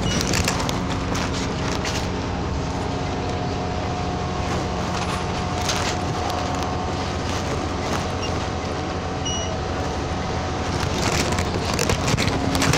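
Scania OmniLink CL94UB city bus under way, heard from inside: a steady diesel engine hum with running noise and scattered interior rattles and clicks, busier near the end.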